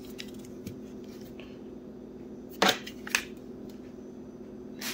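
Hard metallic clicks from a Glock 22 Gen 3 pistol's parts being handled: two sharp clacks about half a second apart near the middle, with a few fainter ticks around them, over a faint steady hum.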